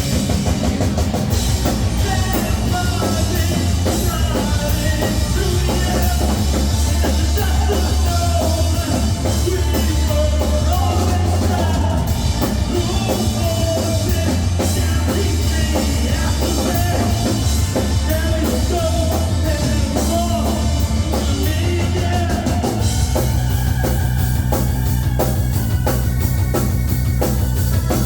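Rock band playing a song live, with drum kit, bass and electric guitar and a singing voice, loud and continuous.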